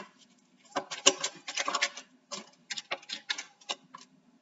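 Rapid, irregular clicking and tapping in quick clusters, which falls away near the end.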